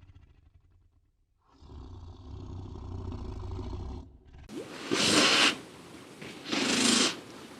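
A large animal's low rumbling growl, then, after a sudden change about four and a half seconds in, two loud breathy hisses or snorts about a second and a half apart.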